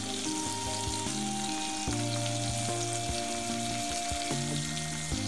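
Marinated chicken legs sizzling in hot butter and olive oil in a ridged grill pan on a gas stove: a steady frying hiss.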